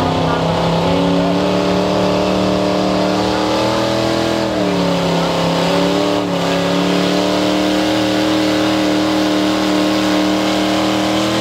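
Small-block V8 of a Chevrolet pickup at full throttle, pulling a weight-transfer sled. Its pitch climbs over the first few seconds, sags briefly about four seconds in as the load bites, then picks back up and holds steady.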